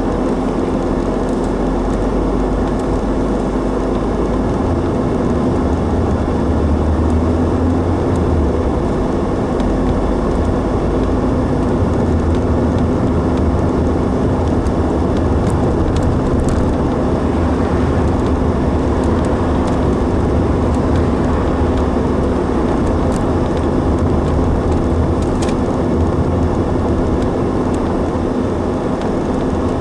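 Car driving at a steady speed: steady engine and road noise with a low hum.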